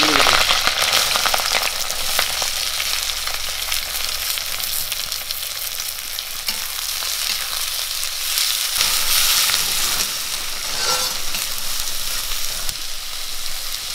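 Sliced onions and green chillies sizzling in hot oil in a wok, loudest just as they drop in, with fine spattering crackles. A metal spatula stirs and scrapes them around the pan.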